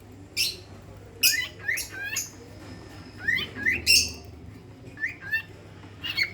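A pet bird giving a string of short, high-pitched chirps and squawks, some sweeping quickly upward, in several clusters a second or so apart.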